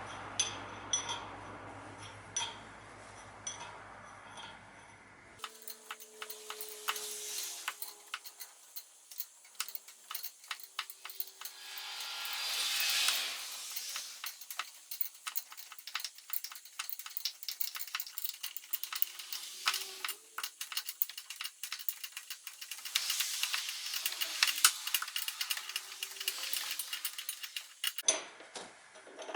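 Metal tools and parts clinking and clicking in quick, uneven strokes, with a brief hiss swelling near the middle.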